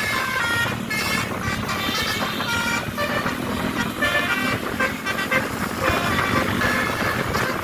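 Bus telolet horn: a tour bus's multi-tone horn plays a quick tune of changing pitched notes over steady background noise.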